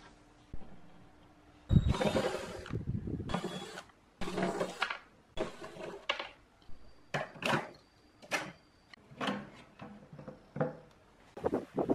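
Cordless drill-driver backing screws out of a power amplifier's sheet-metal case, running in several short spurts with a thin high motor whine, amid clatter of metal parts being handled.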